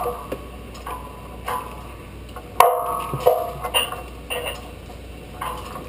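Metal clicks and knocks from a metal truss tower and chain hoist being rigged. A louder clank about two and a half seconds in rings briefly.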